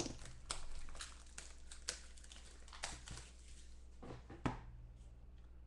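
Plastic shrink wrap being torn and pulled off a box of trading cards, heard as scattered sharp crackles that thin out near the end.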